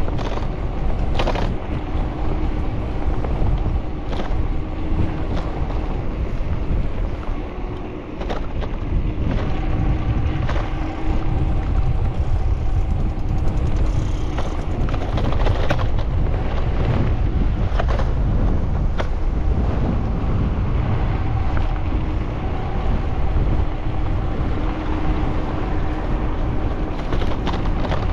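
Wind buffeting the microphone of a helmet- or body-mounted action camera on a delivery bicycle in motion, over a steady rumble of road and traffic noise. A faint hum comes and goes, and short clicks and knocks sound now and then.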